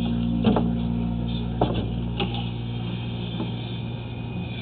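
Steady low hum with three sharp clicks, about half a second, one and a half and two seconds in; the hum fades near the end.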